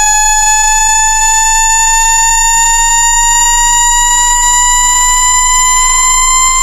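Synthetic speaker-cleaning test tone for ejecting trapped water from a phone speaker: a loud, steady buzzy tone with overtones, gliding slowly upward in pitch, over faint repeating sweeping warbles and a low hum.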